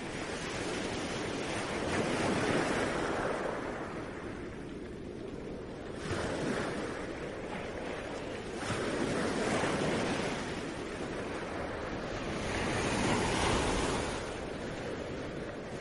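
Sea waves washing in, an even rushing noise that swells and falls back four times, one swell every three to four seconds.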